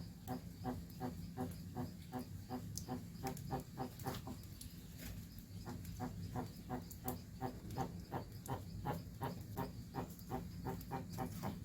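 Jabuti (South American tortoise) calling: a series of short, pitched clucks, about three a second, with a break of about a second some four seconds in, over a steady low hum.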